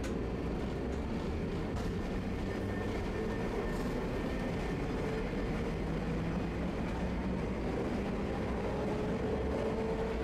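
Tosaden streetcar running, heard from inside the car: a steady rumble of wheels and traction motor with a faint whine that climbs a little near the end.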